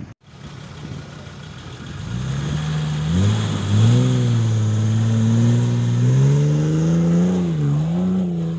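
Nissan Patrol 4x4's engine revving hard under load as it climbs a steep sand slope. The engine note climbs two to three seconds in and is held high, dipping and rising again twice near the end.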